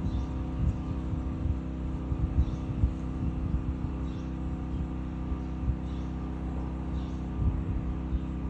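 Small birds chirping faintly in short, repeated calls about once a second, over a louder steady low machine hum with irregular low thumps.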